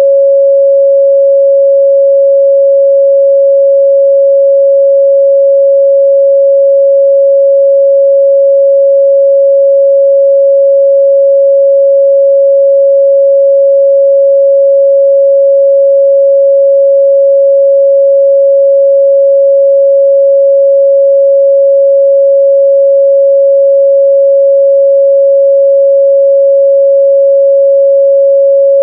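Pure 553 Hz sine-wave test tone, one steady unbroken pitch at a constant loud level.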